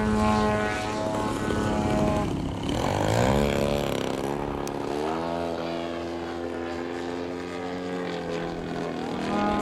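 Radio-controlled aerobatic model airplane's engine and propeller in flight, the pitch changing with the throttle: steady at first, a rising sweep around three seconds in, a steady stretch, then rising again near the end.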